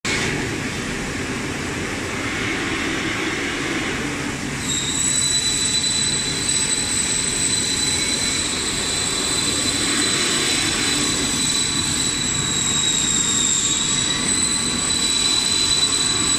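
Evaporative cooling pad production line running, with the paper corrugating and cutting machinery giving off a steady mechanical noise. About five seconds in, a high, steady whine joins it and wavers slightly further on.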